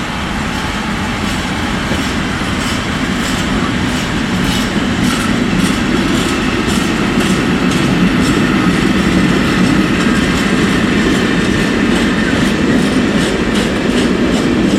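A freight train of container wagons rolling past with a steady rumble, its wheels clicking repeatedly over the track, getting a little louder as it goes.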